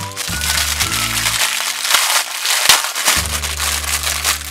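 A thin clear plastic bag crinkling and crackling as hands pull a small toy doll out of it, densest in the middle. Background music plays underneath.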